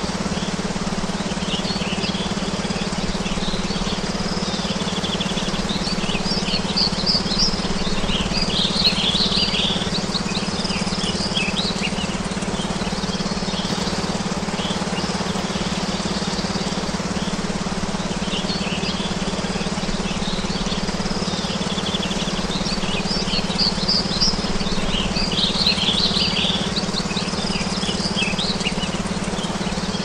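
Songbirds chirping in two spells of song, over a steady low hum and an even hiss: the sustained tone of a brainwave-entrainment frequency track with a birdsong background.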